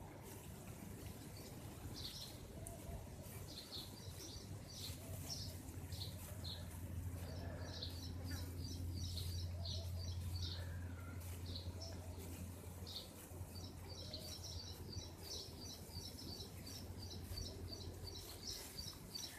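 Several small birds chirping and twittering together in a tree, high-pitched calls coming thick and fast, with quick trilling runs of repeated chirps in the second half. A steady low rumble runs underneath, louder in the middle.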